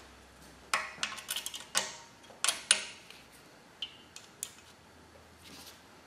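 Sharp metal clinks and clicks from a valve spring compressor on a Vortec 8.1 big-block cylinder head as the valve springs are compressed and the keepers come free, some clinks ringing briefly. There is a quick cluster of clinks in the first three seconds, then two lighter ticks and a soft rustle.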